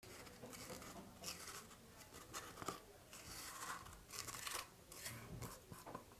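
Silicone spatula scraping powdered sugar out of a small glass bowl: a series of faint, irregular scrapes and rubs.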